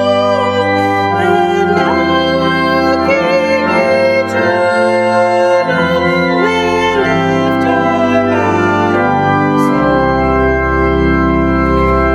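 Organ playing slow sustained chords, moving from chord to chord about every second, with a deep bass chord held from near the end.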